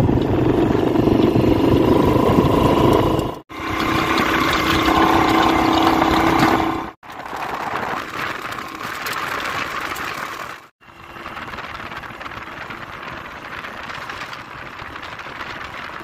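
A vehicle engine running, with road or wind noise, heard as four short shots joined by abrupt cuts. It is loudest in the first two shots and quieter after about seven seconds.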